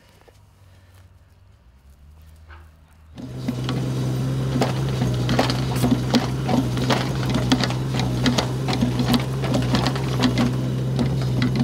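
Mini excavator running, its engine a steady hum, with frequent irregular clanks and knocks from the working arm and bucket. It starts suddenly about three seconds in.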